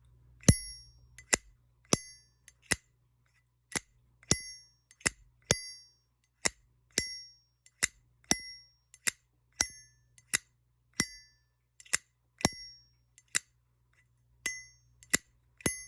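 Zippo lighter lids flicked open and snapped shut over and over, in quick irregular strokes. Each stroke is a sharp metallic click, and many ring briefly and high afterwards.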